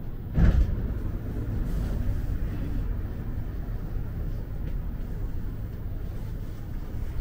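Rubber-tyred Azur metro train running, heard from inside the car: a steady low rumble, with a heavy thump about half a second in.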